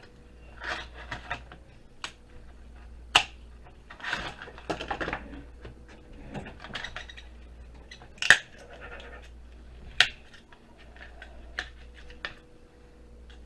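Pliers prying components off a circuit board: scraping and rattling, broken by sharp snaps, the loudest three about 3, 8 and 10 seconds in.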